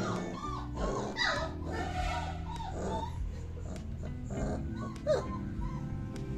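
A litter of 30-day-old Doberman puppies whining and yelping in short rising-and-falling cries, many in quick succession at first and fewer later, wanting to be let out of their pen.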